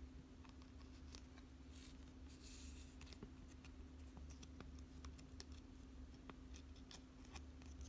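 Near silence: faint clicks and light rustles of a trading card being slid into a plastic card sleeve, over a steady low hum.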